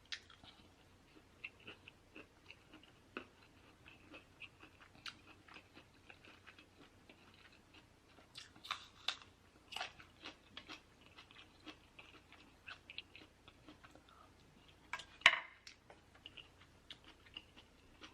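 A person chewing food close to the microphone, with many faint clicks and crackles, busier around 8 to 10 seconds in and one louder bite or smack about 15 seconds in.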